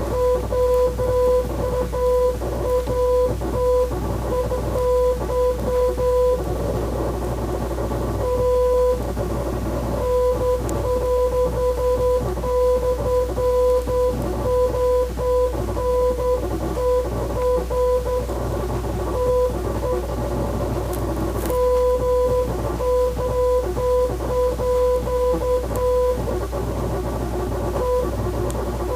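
Morse code signal: a steady beeping tone keyed on and off in short and long beeps, with a few pauses, over background guitar music.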